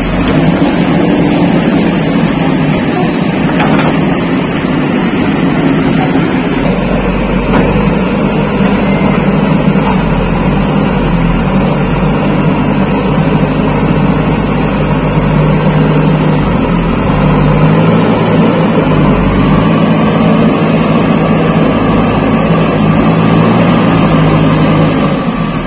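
JCB backhoe loader's diesel engine working under load as its front bucket pushes mud and rubble. The engine note shifts up and down in the second half as the machine pushes.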